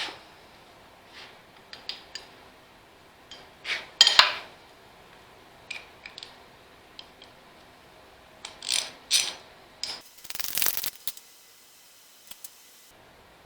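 Wrench working a stubborn bolt on an Allis-Chalmers WD45 tractor: scattered metallic clicks and clanks, the loudest a pair about four seconds in, with a short dense run of rapid clicking about ten seconds in.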